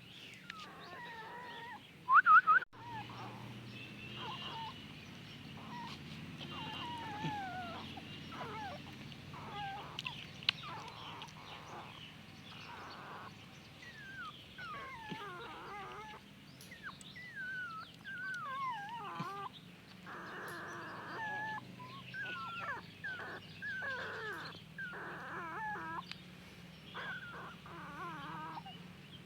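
Newborn puppies crying: many short, high, wavering squeals and whimpers, one after another, with one louder squeal about two seconds in.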